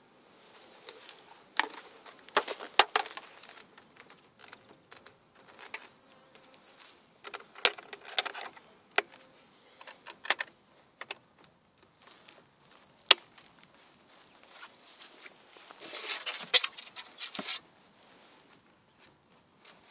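Green wooden beehive being closed up: a series of sharp clicks and knocks as the lid goes on and its metal latches are worked, with honeybees buzzing faintly at first. A longer burst of scraping and rustling comes about sixteen seconds in.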